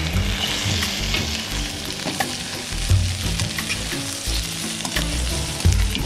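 Momos and sliced capsicum and onion sizzling in a metal kadai while a steel spatula stirs and scrapes them, with sharp clicks and a few louder knocks of the spatula against the pan.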